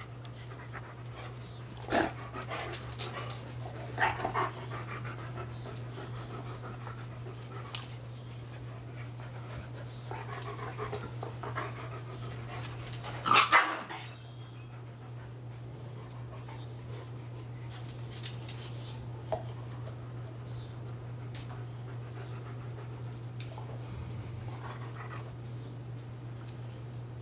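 Dogs panting, broken by several short, loud outbursts of dog noise, the loudest about halfway through.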